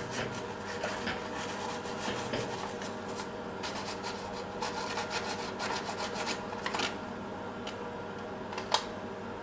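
Scratchy rubbing and handling noises as a hand works a slip of paper against the steel workpiece and vise under a milling machine's flycutter, with a sharp click near the end. A steady hum runs underneath.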